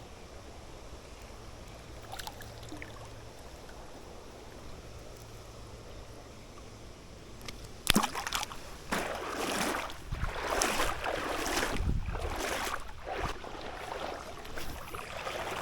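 Hooked smallmouth bass splashing and thrashing at the surface of the river water during the fight. Before it the water is fairly calm with a faint steady hum. About eight seconds in there is a sharp knock, followed by several seconds of irregular splashing that fades toward the end.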